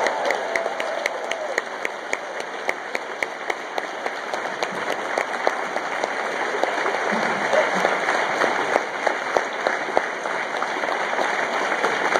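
Audience applauding, with one clapper standing out at about four claps a second for the first few seconds.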